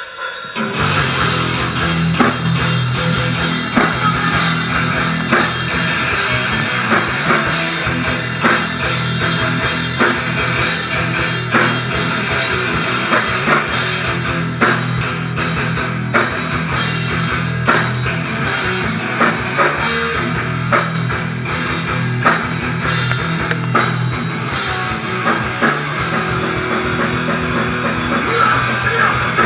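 Heavy rock band playing live at full volume: distorted electric guitars and a pounding drum kit, the whole band coming in at once right at the start.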